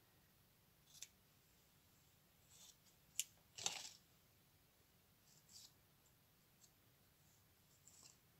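Near silence broken by a few brief handling sounds: scissors snipping a scrap of thin fabric, a sharp click just after three seconds in, followed at once by a short rustle, then a few faint taps.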